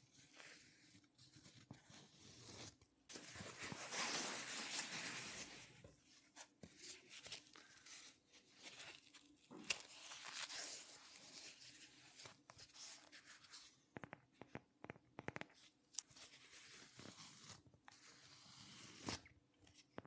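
Fingers scratching, rubbing and tapping on a phone case held close to the microphone: a louder rasping stretch about three to six seconds in, then scattered sharp taps and clicks with softer scratching between.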